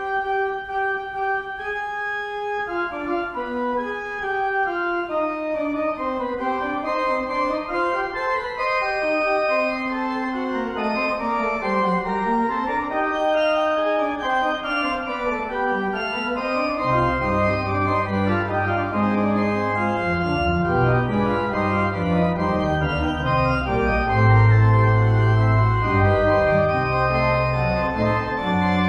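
Organ playing the closing voluntary at the end of the service: a moving line over held chords, with deep bass notes coming in a little past halfway.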